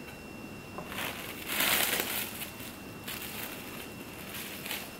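Plastic cling film crinkling as it is handled and spread over a wooden cutting board, loudest about a second and a half in, then lighter crinkles.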